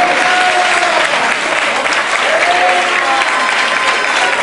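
Crowd applauding, a dense steady clapping, with voices calling out over it.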